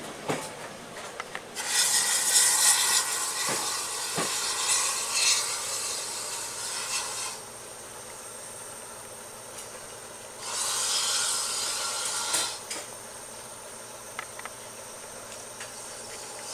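Steam hissing from GWR 6400-class pannier tank locomotive 6430 as the train pulls out, in two long bursts: one lasting about six seconds from a second and a half in, and a shorter one about two seconds long near ten seconds in.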